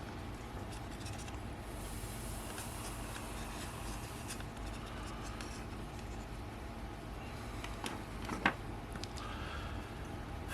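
Small plastic and metal parts of a Canon EF-S 18-200 zoom lens being handled during disassembly: faint clicks, scrapes and rubbing over a steady low hum, with one sharper click about eight and a half seconds in.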